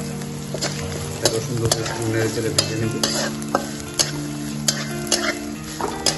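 Steel spatula stirring grated coconut, peas and spices frying in hot oil in an iron kadai. A steady sizzle runs throughout, with frequent scrapes and clicks of the spatula against the pan.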